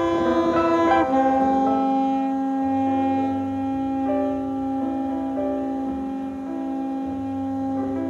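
Instrumental score music with sustained, held notes that change every second or so.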